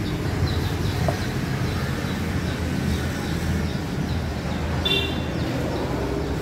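A steady low mechanical rumble, with a short high chirp about five seconds in.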